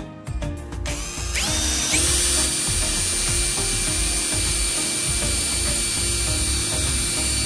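A small electric power tool, drill-like, switched on: its motor spins up with a rising whine about a second in, then runs at a steady high pitch, over background music.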